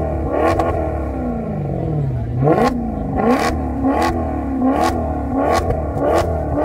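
Maserati GranTurismo V8 revved in quick throttle blips, about seven times. The pitch rises sharply and falls back toward idle each time.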